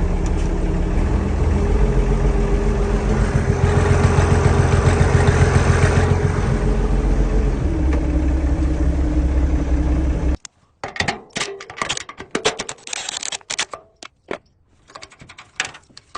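International 986 tractor's six-cylinder diesel running on its stock exhaust. It is revved up about two seconds in, held for several seconds, eased back and raised again. About ten seconds in the engine sound ends abruptly, and a run of light clicks and knocks follows.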